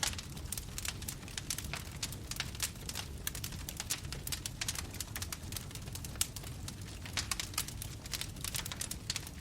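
Crackling fire sound effect: a dense, irregular run of sharp pops and snaps over a low steady rumble.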